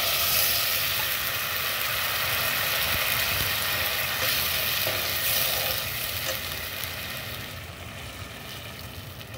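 Hot ghee tempering of cumin, chilli and ginger sizzling as a thin flour-and-water slurry is poured in and stirred with a spoon in a non-stick pot. The hiss fades gradually over the last few seconds as the liquid cools the pan.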